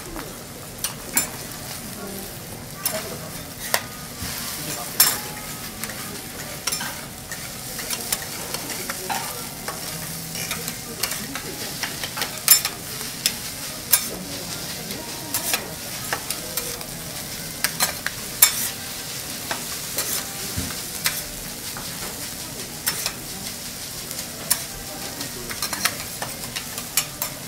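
Fried rice and egg sizzling on a steel teppanyaki griddle, with metal spatulas clacking and scraping on the plate at irregular intervals as they chop and toss the rice.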